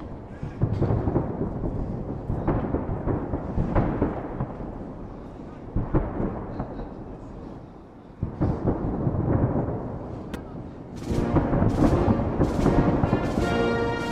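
Festive salute fireworks bursting in a run of deep booms, about one a second, each with a long echoing tail. Music comes in about three-quarters of the way through.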